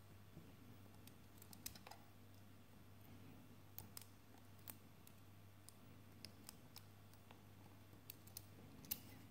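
Faint, irregular metallic clicks of a lock pick and tension tool working the pins inside an Avocet ABS euro cylinder lock, the loudest click near the end, over a faint steady low hum.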